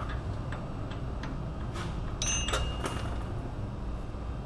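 Scattered metallic clicks, with one short ringing clink about two seconds in, from tools and bolts being handled while fitting the hub bearing assembly's mounting bolts.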